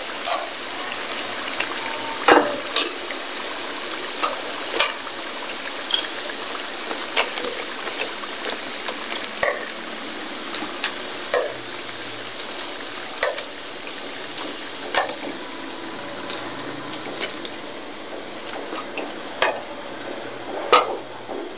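Chicken feet deep-frying in hot oil in a metal wok: a steady sizzle, with metal tongs repeatedly clicking and scraping against the wok as the pieces are turned and lifted out.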